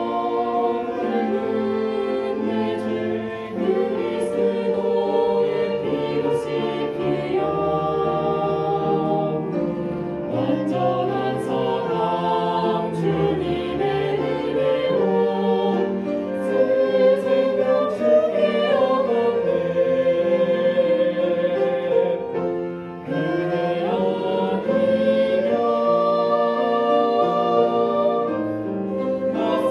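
Church choir singing a slow worship song with an orchestra accompanying.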